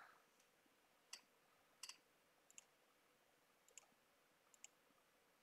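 About five faint computer-mouse clicks, irregularly spaced, against near silence.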